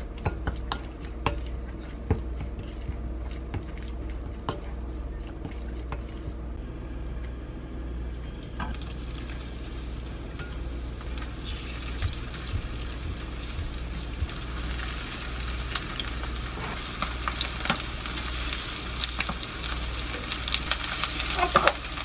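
Spoon clicking against a glass bowl as rice flour is mixed into raw chicken pieces. After about nine seconds a sizzle sets in as the chicken is laid into hot olive oil in a frying pan, and it grows louder toward the end, with clicks of tongs moving the pieces.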